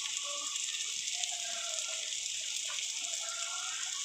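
Sliced bitter gourd, onion and green chillies sizzling steadily in hot oil in a metal kadai.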